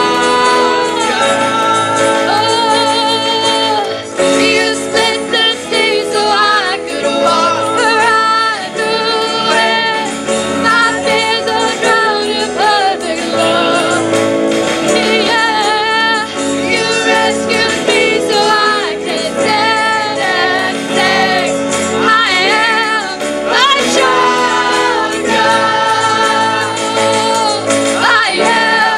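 Live worship band playing and singing: acoustic guitar, electric guitar, bass guitar and keyboard under sung vocals, continuous throughout.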